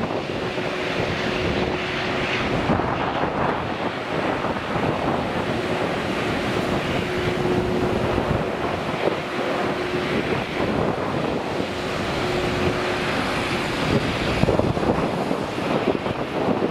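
Steady jet engine roar from a Boeing 777 slowing on its landing rollout just after touchdown, mixed with wind buffeting the microphone. A faint steady tone comes and goes underneath.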